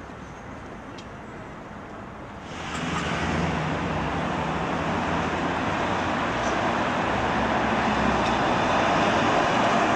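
City street traffic noise: quiet outdoor ambience with a few faint clicks, then abruptly louder steady traffic about two and a half seconds in, with cars and an approaching tram growing slowly louder toward the end.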